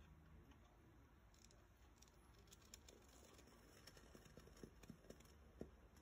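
Near silence, with faint, irregular ticks scattered through the middle of it.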